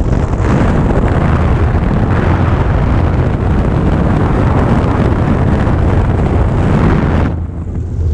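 A light high-wing aircraft's engine at full power on the takeoff roll and liftoff, under heavy wind buffeting on the tail-mounted camera's microphone. Near the end the rush briefly thins out and dips, then returns.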